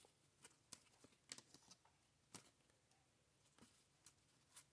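Near silence broken by a few faint, scattered ticks and flicks of 1994 Topps Stadium Club baseball cards being handled and shuffled through in the hand.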